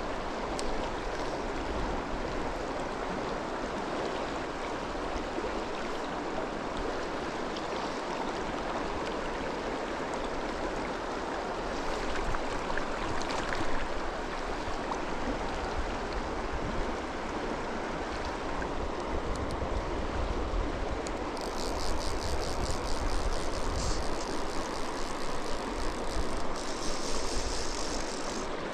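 Shallow mountain river rushing over rocks in a riffle, a steady close wash of water. From about three-quarters of the way in, a fast, high ticking joins it.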